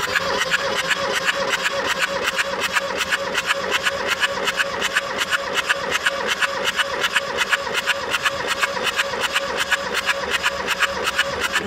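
Kubota B6100 three-cylinder diesel cranked over on its electric starter for a compression test on one cylinder. It turns over in an even, rhythmic chug over a steady starter whine, then stops abruptly.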